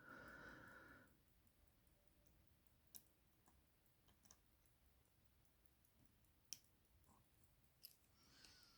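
Near silence broken by four faint, sharp clicks spread a second or more apart: small metal tools touching the parts of a pocket watch movement as it is reassembled.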